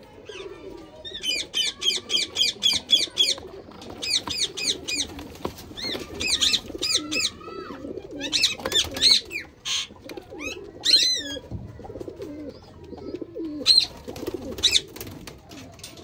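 Domestic pigeons cooing continuously. Over the cooing come runs of quick, high, repeated chirps from other birds: one run of about two seconds near the start, then several shorter ones.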